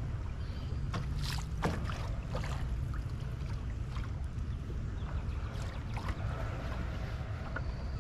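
Wind buffeting the microphone as a low rumble, with water slapping against the hull of a small boat in a few short splashes.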